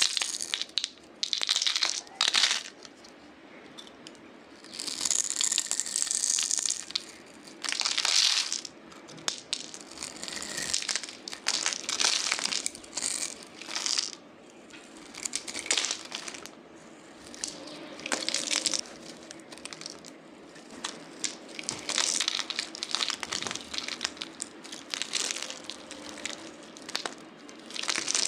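Utility knife blade scraping and shaving a bar of soap, in repeated crisp scraping strokes with short pauses between, the soap flaking off in shavings.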